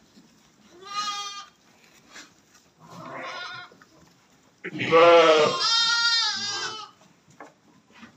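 Bleating livestock: a short bleat about a second in, a fainter one near three seconds, then a loud long bleat about five seconds in followed at once by a higher, wavering one from another animal.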